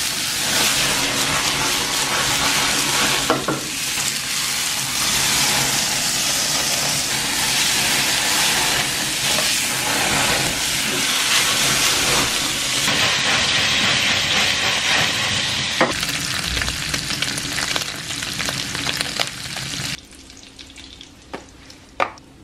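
Food frying in a pan with a dense, steady sizzle and a few sharp clicks; the sizzle cuts off suddenly near the end.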